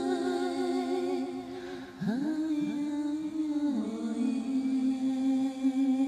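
A woman's voice singing wordless, held notes, with a run of quick upward slides about two seconds in, over soft music.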